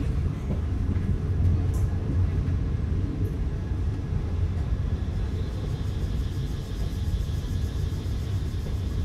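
Passenger train running along the track, a steady low rumble heard from inside the carriage.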